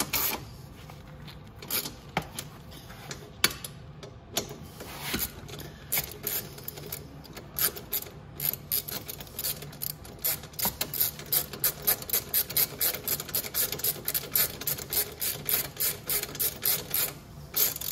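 Ratchet wrench clicking as bolts are turned: scattered clicks at first, then a quick, even run of about five clicks a second that stops shortly before the end.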